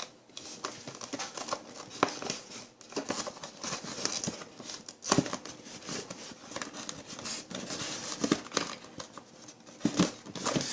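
Packaging being handled: irregular crinkling and crackling with scattered clicks and taps as a part is worked loose from the box.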